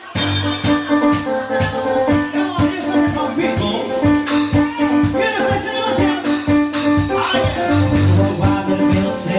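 Live band playing an upbeat dance number: electronic keyboard chords and bass notes over a drum kit and shaker-like percussion keeping a steady beat.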